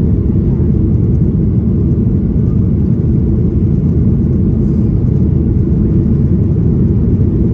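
Cabin noise of a Boeing 737-800 in flight: the steady, deep rumble of its CFM56-7B turbofan engines and the airflow, heard from a window seat behind the wing.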